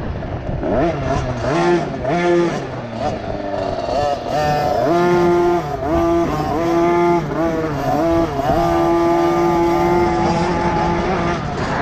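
KTM 50 SX youth motocross bike's small two-stroke single-cylinder engine revving up and down repeatedly as the throttle is opened and shut. It is held steady at high revs for a few seconds near the end, then drops off.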